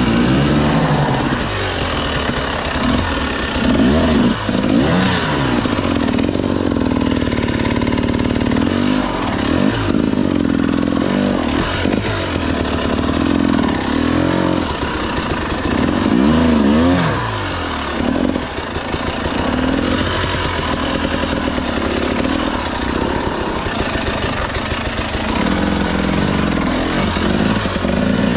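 KTM 300 EXC TBI single-cylinder two-stroke dirt bike engine revving up and dropping back again and again, under load as the bike is worked up a steep rocky climb.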